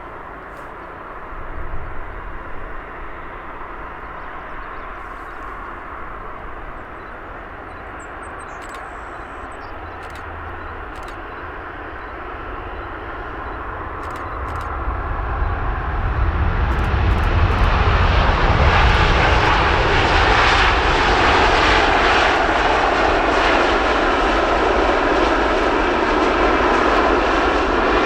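Airliner engines growing louder over several seconds as the aircraft comes close, then holding a loud, steady rumble.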